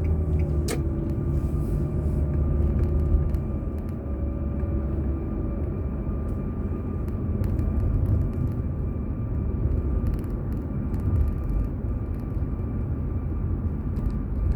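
Car in traffic heard through a dashboard camera: a steady low rumble of engine and road noise, with a hum over the first five seconds and a sharp click about a second in.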